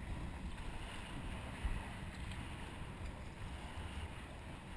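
Wind buffeting the camera microphone, a steady low rumble, with one thump about a second and a half in.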